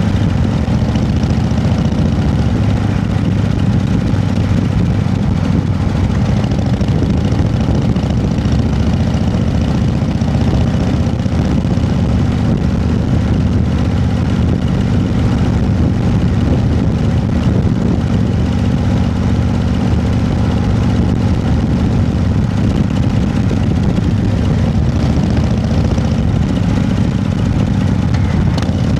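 An engine running steadily at idle, with an even low hum that does not change in pitch or level.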